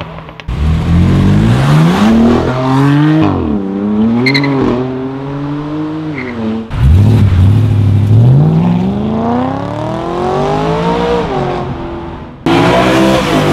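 Sports-car engines accelerating hard, cut together from separate clips. A BMW M3 F80's twin-turbo straight-six revs up and drops back through gear changes. After a cut, another BMW sedan's engine rises in one long pull, and a third loud engine comes in near the end.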